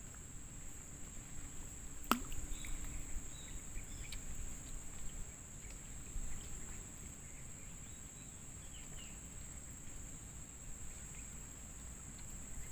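Steady high-pitched drone of insects in the riverside forest, with a few faint bird chirps and a single sharp knock about two seconds in.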